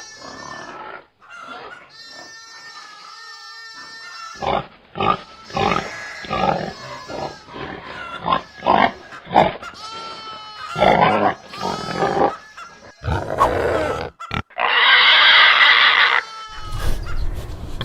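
Pigs grunting in short repeated calls, with one loud harsh squeal lasting about a second and a half near the end.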